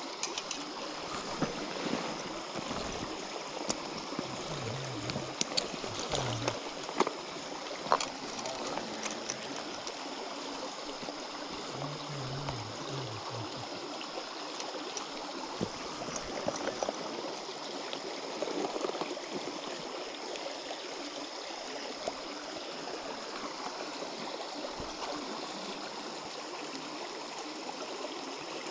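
Shallow creek flowing steadily over a sandy bed, with a few light clicks about five to eight seconds in.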